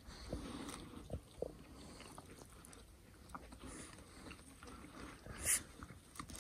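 Vietnamese pot-bellied pigs feeding: faint chewing and crunching with scattered small clicks, and a brief rustle about five and a half seconds in.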